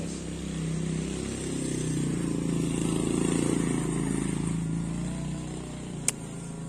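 A motorcycle engine running steadily, growing louder over a couple of seconds and then fading, with one sharp click near the end.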